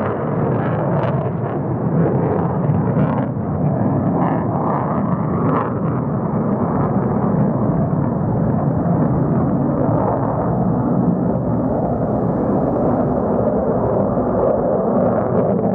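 Jet noise from a single F-35B's F135 afterburning turbofan as the fighter flies steep climbs and inverted passes overhead. It is loud and continuous, crackling through the first several seconds and then steadier.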